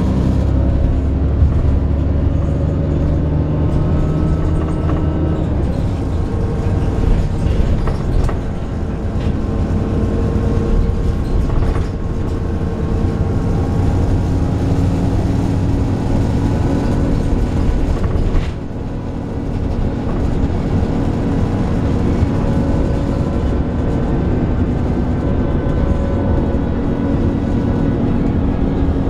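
Alexander Dennis Enviro 400 double-decker bus on a Trident 2 chassis under way, its engine and drivetrain running with a groaning note made of several tones that drift slowly up and down. The level dips briefly about two-thirds in.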